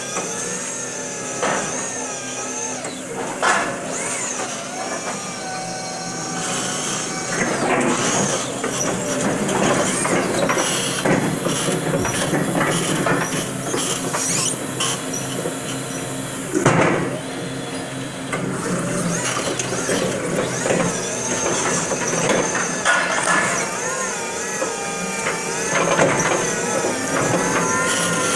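A Crown stand-up reach truck at work raising a pallet into high racking: its electric motors and hydraulic lift whine and waver in pitch, with mechanical knocks from the mast and forks, the sharpest about 17 seconds in.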